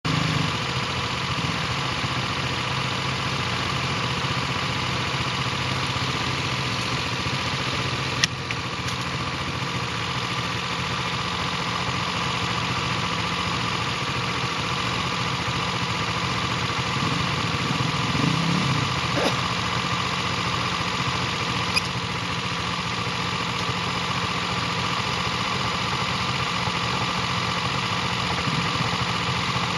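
Vehicle engine running steadily at an even pitch, with a couple of brief sharp clicks.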